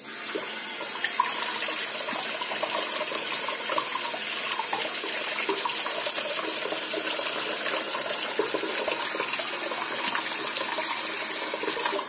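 Hot water running from a kitchen tap onto a cucumber held in the stream and splashing on a plate in the sink: a steady rush that starts suddenly at the start and is shut off at the end.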